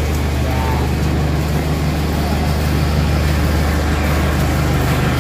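Steady low hum of an idling vehicle engine, even in level throughout.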